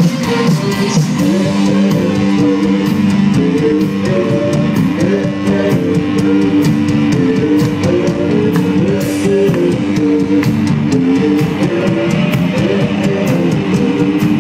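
Live indie rock band playing loudly through a festival PA: electric guitars play a melodic riff over bass and a steady drum-kit beat with cymbal hits.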